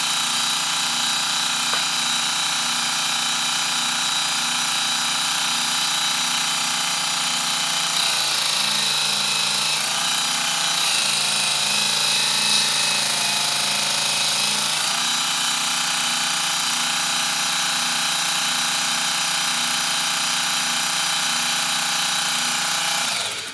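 Mini belt grinder running steadily with a high whine. From about 8 to 15 seconds in, the steel spring of a lockback knife's lockbar is pressed against the belt and sanded, and the motor's pitch drops slightly under the load. The grinder stops abruptly near the end.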